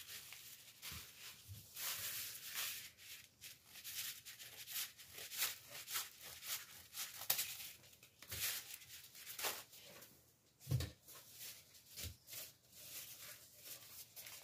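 Crepe paper rustling and crinkling in short, irregular bursts as it is handled and folded, with a soft knock about two-thirds of the way through.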